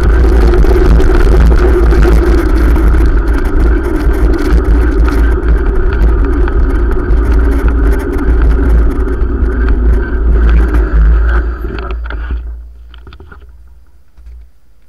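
Loud, steady riding noise on a bike-mounted camera: wind rumbling on the microphone with a steady hum over it. It dies away about twelve seconds in, leaving only faint ticks.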